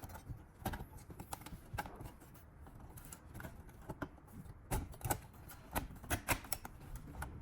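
Irregular small plastic clicks and taps from hands handling and fitting the parts of a car display screen unit.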